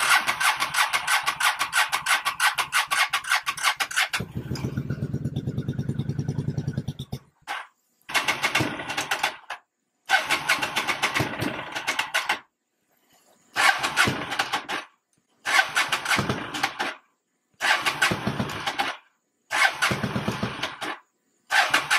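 Honda Shadow Spirit 750's V-twin engine cranked by its electric starter on full choke: a long crank, a heavier, lower-pitched stretch about four seconds in, then repeated short bursts of cranking that never catch. The owner puts the failure to start down to stale, rotten gasoline.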